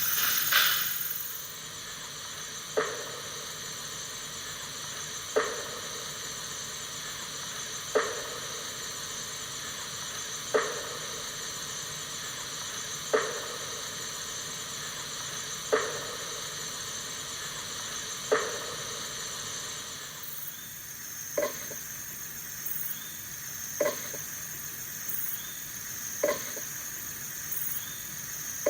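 A short, sharp call repeating evenly about every two and a half seconds over a steady high-pitched night insect chorus. About two-thirds of the way through the call changes to a lower, slightly longer note, still repeating at the same pace.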